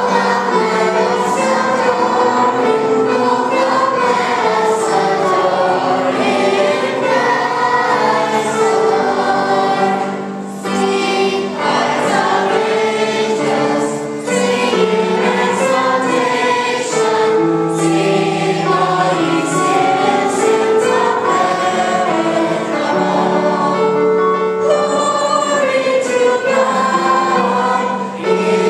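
Children's choir singing a Christmas carol, sustained notes moving in steady phrases.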